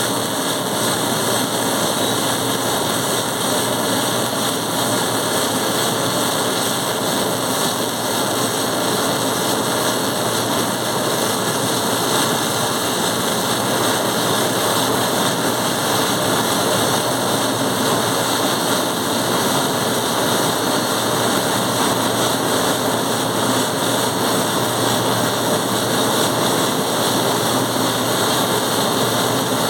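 Electric welding arc running steadily: a continuous hiss that holds one level with no break.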